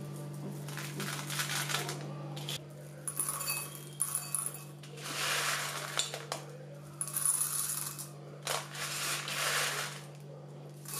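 Crisp dry-roasted black chickpeas (kala chana) clattering into a glass bowl as they are poured in several spurts.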